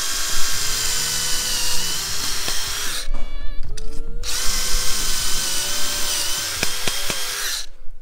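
Power drill driving a stepped pocket-hole bit through a Kreg jig into a pine board, in two runs of about three seconds each with a short pause between them, one for each pocket hole. The motor's whine sags slightly as the bit bites into the wood.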